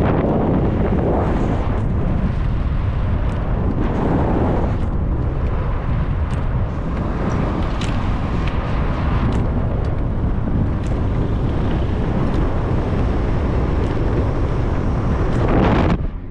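Steady wind buffeting the microphone over the rumble of a moving car, with a few faint clicks.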